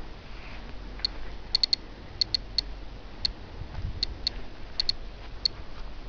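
Ecotest MKS-05 dosimeter giving short, high pips at irregular intervals, about thirteen in six seconds, sometimes two or three in quick succession. Each pip is a registered radiation count, and the random spacing is that of radiation being detected.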